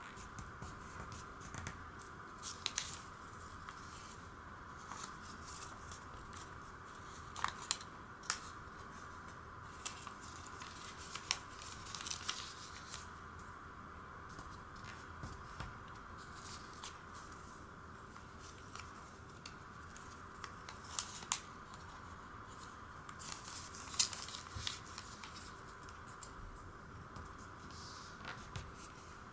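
Origami paper being folded and creased by hand: scattered short crackles and rustles of the paper, a few louder ones now and then, over a steady background hiss.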